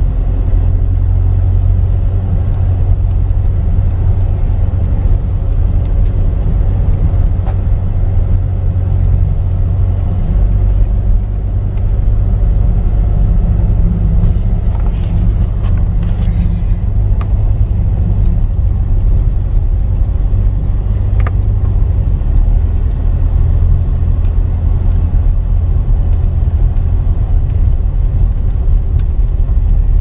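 Car driving slowly on an unpaved dirt road, heard from inside the cabin: a steady low rumble of engine and tyres, with a few faint clicks in the middle.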